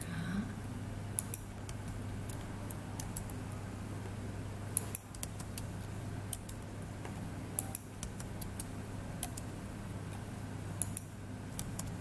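Sharp clicks of a computer mouse and keyboard, often in quick pairs every second or few, as Tab is pressed and lines are clicked; a steady low hum runs underneath.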